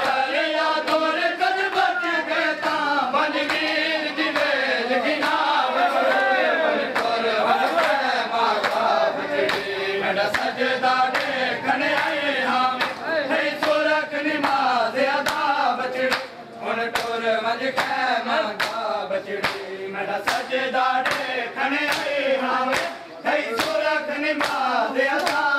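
A group of men chanting a Punjabi noha in unison, punctuated by a steady beat of sharp slaps from open hands on bare chests (matam). The chant drops out briefly twice, past the middle and near the end.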